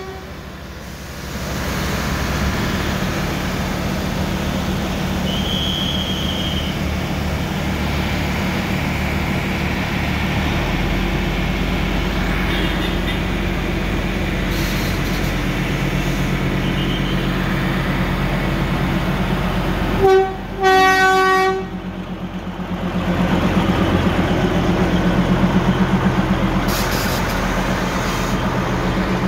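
Narrow-gauge diesel locomotive of the Darjeeling Himalayan Railway toy train running with a steady drone. It sounds its horn once, for about a second and a half, about two-thirds of the way in. The engine then grows louder as the train pulls past.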